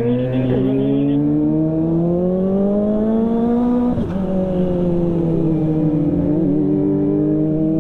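Kawasaki ZX25R's 250 cc inline-four running through a CLD aftermarket exhaust, pulling under steady acceleration with the engine note climbing slowly. About four seconds in the pitch drops sharply at an upshift, then the engine holds an even cruise, easing slightly lower.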